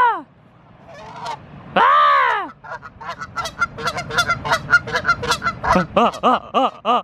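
An agitated goose honking in defence of its mate: a rapid run of short calls, then slower, evenly spaced honks near the end. A loud shout of "Ah!" comes about two seconds in.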